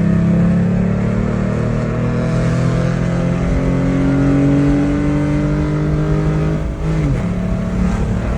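Ford Mustang engine and exhaust, with headers and no X-pipe yet, running under load with its pitch rising slowly over about six seconds, then dropping briefly about seven seconds in before picking up again.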